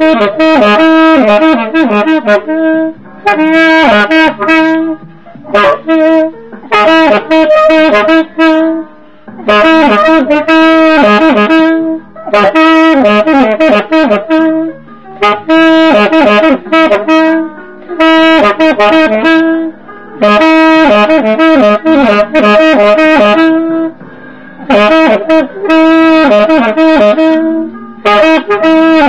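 A 1920s Buescher True Tone low-pitch alto saxophone playing a jazz melody in phrases a few seconds long, with short breaks between phrases.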